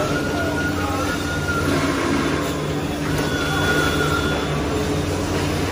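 Steady machinery hum with a constant low drone. A higher whine comes and goes twice.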